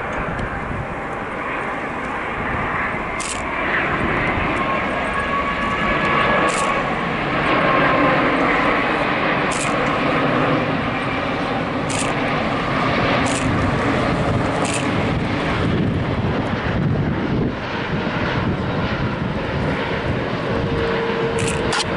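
Boeing 787 Dreamliner's twin jet engines on final approach with the landing gear down: a steady rushing roar with faint whining tones, growing louder about four seconds in and then holding.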